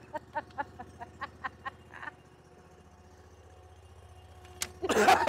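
Engine of a hydraulic log splitter idling with a steady low hum. Over it, a run of short bursts of laughter fades out over the first two seconds.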